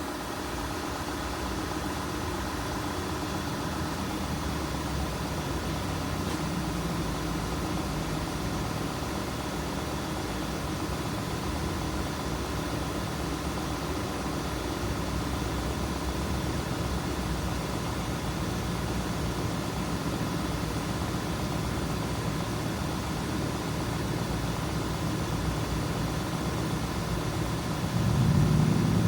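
Car engine idling steadily with the air conditioning switched on, a low, even running sound. Near the end a louder, deeper sound builds up.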